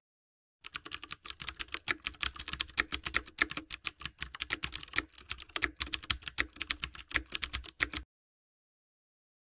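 Computer keyboard typing sound effect: rapid, irregular key clicks for about seven seconds, cutting off suddenly.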